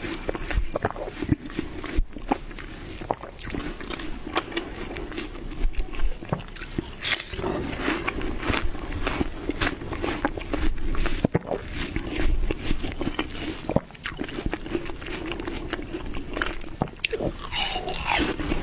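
Close-miked biting and chewing of watermelon: many short, sharp, irregular bite and chew sounds in quick succession.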